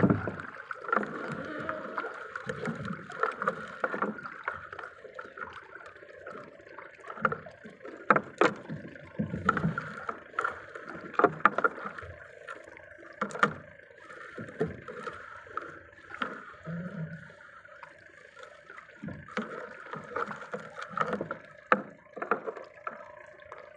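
Water splashing and sloshing around a small fishing boat, with repeated sharp knocks against the hull over a steady hum.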